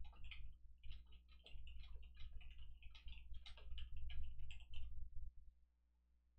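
Rapid, irregular light clicking over a steady low hum. The clicking stops about five seconds in, leaving only the hum.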